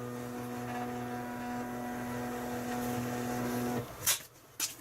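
Zebra LP2844 thermal label printer printing a test label at its slowest speed: a steady motor whine that stops near the end, followed by a couple of short clicks.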